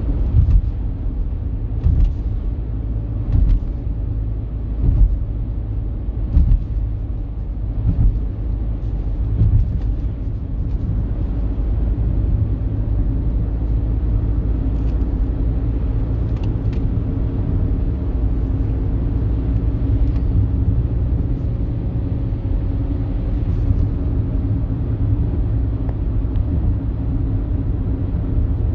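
In-cabin noise of an Audi Q5 2.0 TDI diesel SUV cruising at about 80 km/h in sixth gear around 1,800 rpm on light throttle: a steady low rumble of engine and road with a faint even hum. During the first ten seconds a series of low thumps comes about every one and a half seconds.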